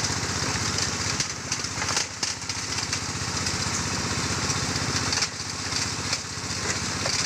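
Engine-driven gold-ore stone grinding machine running steadily: a small engine's rhythmic pulsing under a continuous high grinding hiss, dipping briefly twice.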